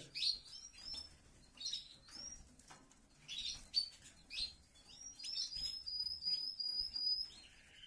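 Small aviary birds chirping: short, high, rising chirps, then a quick run of repeated high notes a little past halfway.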